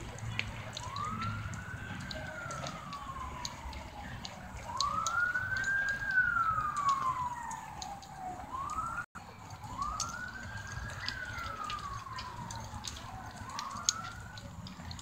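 A wailing siren: its pitch rises quickly and then falls slowly, repeating about every three to four seconds.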